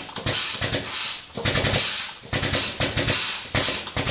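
Hydraulic shop press being pumped by foot in repeated strokes, roughly one every half second to second, as it presses a U-joint out of a driveshaft yoke.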